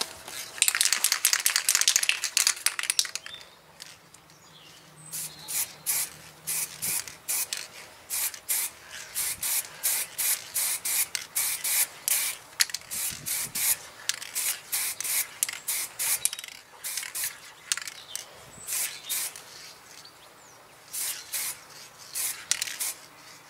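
Aerosol spray paint can hissing as silver base coat is sprayed onto a diecast model car body: a longer spray near the start, then many short bursts, roughly two a second.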